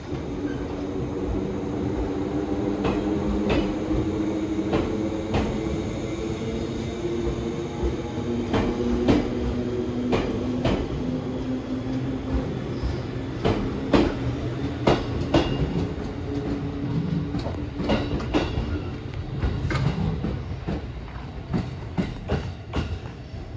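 A 211 series electric train departing at close range: a steady hum from its traction motors and gears for roughly the first half, with irregular clacks of the wheels over rail joints throughout.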